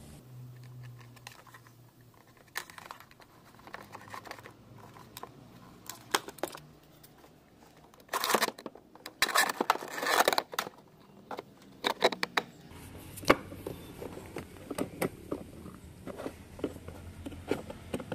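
Hand-fitting a plastic power outlet socket into a motor scooter's plastic body panel: scattered clicks and taps of plastic parts, with two longer rustling, scraping bursts around the middle as the socket is worked into place.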